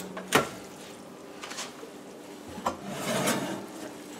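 Oven door being opened: two sharp clunks in the first half second, then a quieter clink and a scraping rattle of metal on metal about three seconds in as the baking pan is drawn off the oven rack.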